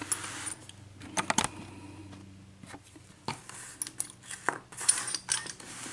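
Scattered light metallic clicks and clinks as a brass padlock and small tools are handled and set down.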